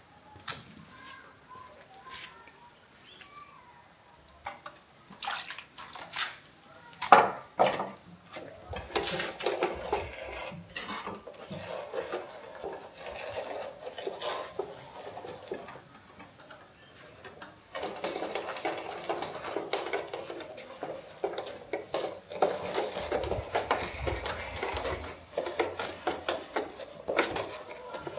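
Cooking pots, pans and metal utensils being handled: scattered clinks and knocks, the sharpest about seven seconds in, then a denser run of scraping and clatter through the second half.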